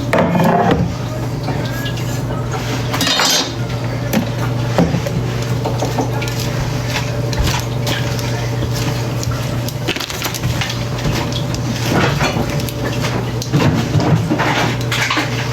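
Utensils clinking and scraping against a bowl as a salad is mixed, with scattered light knocks, over a steady low hum.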